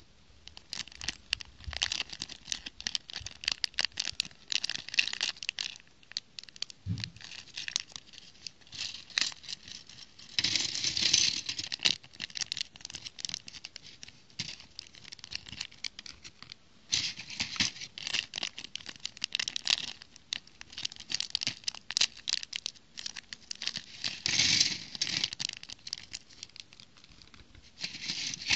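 Thin clear plastic bags crinkling and tearing as they are opened, in several busy bouts of rustling. Small plastic building-brick pieces click and rattle as they are tipped out and handled on a paper plate.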